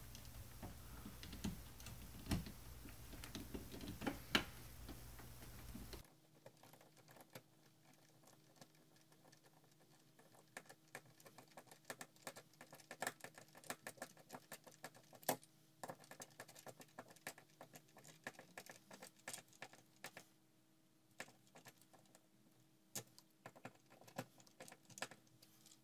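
Faint, irregular clicking and ticking of a hand-turned Phillips screwdriver driving a screw through a metal mounting plate into a wall stud. A low room hiss drops away about six seconds in while the clicks go on.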